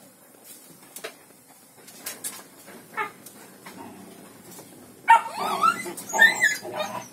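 Young black village-dog puppies whining and yipping in loud, wavering calls that start about five seconds in, after a few seconds of only a few light knocks.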